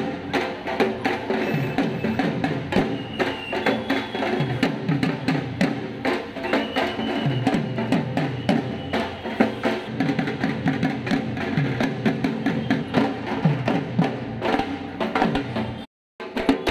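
Music with fast, busy drumming, some deep drum strokes sliding in pitch. It cuts out briefly near the end and then starts again.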